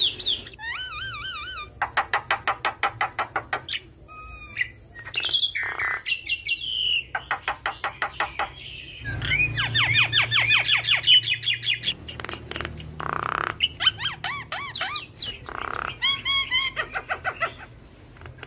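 Javan myna singing a long, varied song: fast trains of short repeated notes, wavy warbled whistles and several harsh squawks, one after another.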